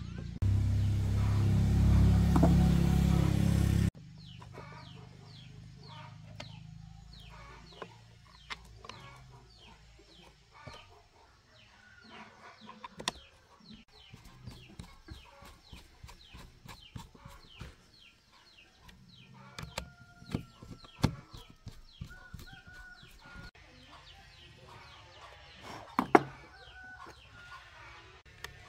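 For the first few seconds a loud steady low noise, which cuts off abruptly. Then chickens clucking and chicks peeping in quick repeated falling chirps, with scattered sharp clicks and taps of a screwdriver and screws on a metal planer housing; the loudest tap comes a couple of seconds before the end.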